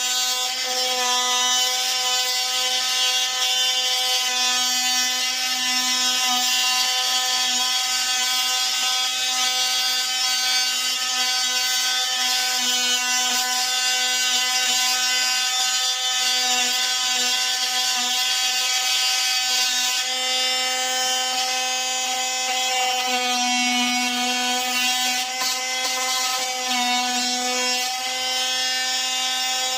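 Power tool running continuously with a steady buzzing hum. Its pitch dips slightly a couple of times in the second half.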